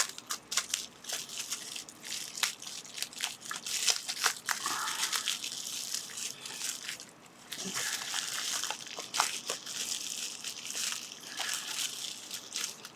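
Packaging crinkling and rustling as it is handled and opened by hand, with many small irregular clicks and crackles.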